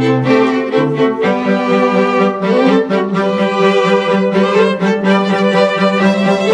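Background music played on bowed strings, violin and cello, with sustained notes over a held low line.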